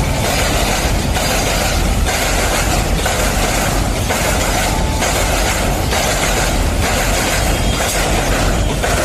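Container freight wagons rolling past at close range: a loud, steady rumble and rattle of wheels on rail, with a faint regular beat about once a second.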